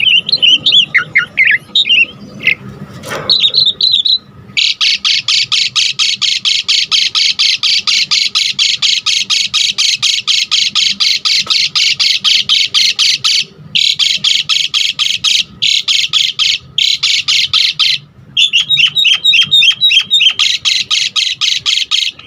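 Javan pied starling singing: a few seconds of varied whistled phrases, then a long run of fast, harsh, rasping notes, several a second. The run breaks off briefly a few times and has a short stretch of whistled notes in it.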